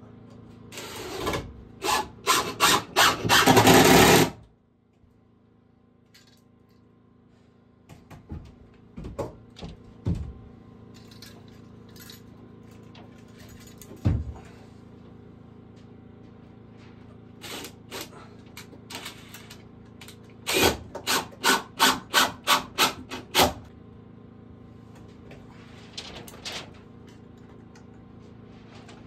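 Hand tool working wood: a quick run of rasping strokes near the start, a few single knocks, then a steady series of about nine strokes, roughly three a second, two-thirds of the way in.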